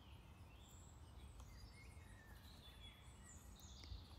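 Near silence: faint room tone with faint bird chirps in the background.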